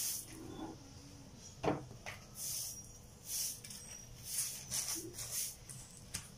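Broom sweeping a bare concrete floor: a run of brushing swishes, about one a second, with a single knock about a second and a half in.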